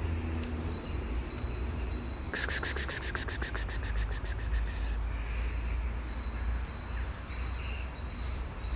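A bird's rapid rattling chatter, about eight short notes a second, starting a couple of seconds in and lasting about two and a half seconds, over a steady low outdoor rumble.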